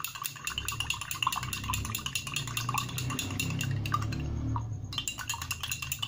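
Metal spoon stirring liquid in a drinking glass, clinking quickly and repeatedly against the glass, with a short pause about four seconds in. A low hum runs underneath for most of it.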